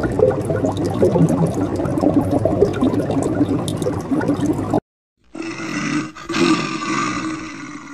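Dense crackling, bubbling water noise for about five seconds, then after a short break a bear's low growl that slowly fades.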